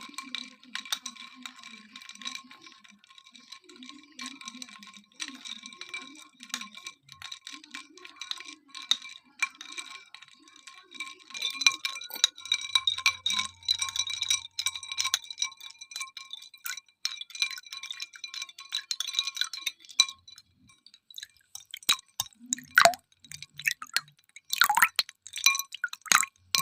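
Ice cubes clinking against a drinking glass in a rapid, irregular run of small knocks, each setting the glass ringing; the knocks grow louder and denser near the end.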